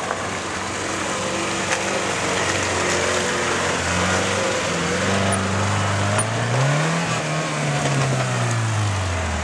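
Kia Sportage SUV's engine revving hard under load as it climbs a dirt slope off-road. Its pitch rises to a peak about seven seconds in, then falls away.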